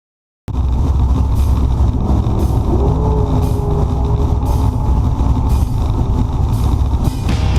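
Hard rock song with drums and electric guitar, starting abruptly about half a second in.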